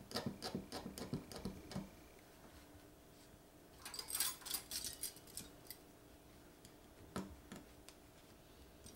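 Faint, quick scratching strokes as old key cork is scraped off a metal clarinet key with a scraper, for about the first two seconds. Around four seconds in come light metallic clicks and scrapes of clarinet keys being handled, and two small taps near seven seconds.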